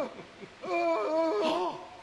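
A man's exaggerated, wavering moaning wail: put-on cries of pain from someone lying on the floor after a staged fall.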